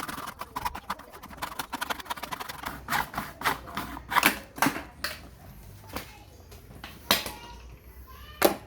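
Rapid light clicking, then a series of louder separate knocks and taps of hard objects, the strongest near the end.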